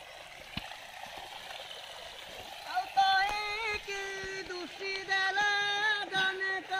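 A steady watery hiss, then from about three seconds in a high voice singing a tune in long held notes that step between pitches.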